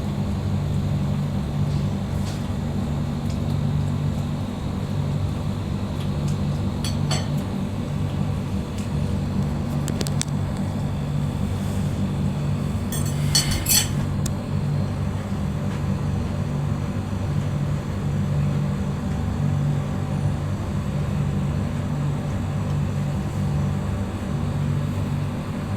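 Steady low hum, with light clinks like glass or dishes once about seven seconds in and again in a short cluster about thirteen seconds in.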